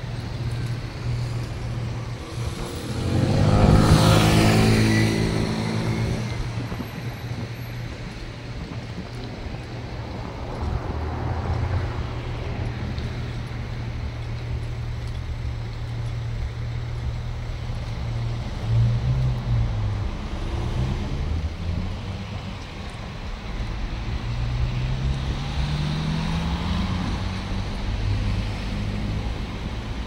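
Road traffic: a car passes close by about four seconds in, over a steady low engine hum. Near the end an engine note rises in pitch as a vehicle speeds up.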